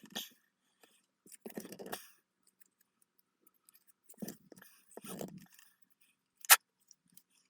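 Small plastic model parts being handled and fitted together: several short rattling clatters, then one sharp click near the end.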